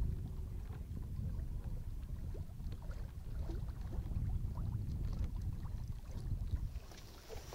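Wind rumbling unevenly on the microphone, with small water sounds lapping and splashing against a boat's hull.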